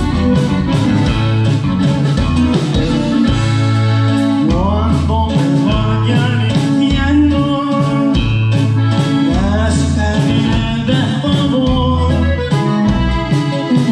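Norteño band playing live on stage: drum kit keeping a steady beat under bass and guitar, with a melody line that slides in pitch now and then.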